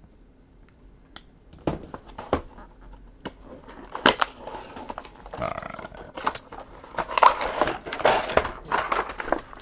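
Cardboard toy box being opened by hand: a few light clicks as the flaps are pried open, then from about four seconds in, dense crinkling and scraping as the clear plastic blister tray is slid out of the box.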